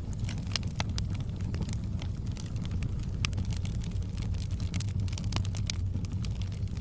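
Wood fire crackling in a fireplace: irregular sharp pops and snaps, several a second, over a steady low rumble of the flames.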